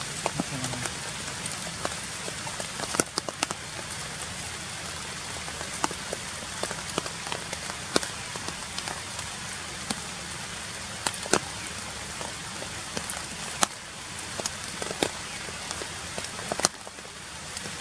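Rain falling: a steady hiss with irregular sharp ticks of single drops scattered through it.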